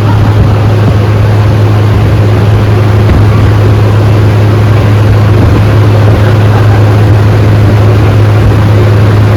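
Hurricane simulator's powerful blower fans switching on abruptly and running at full speed: a loud, steady, deep motor hum under rushing, gusting wind.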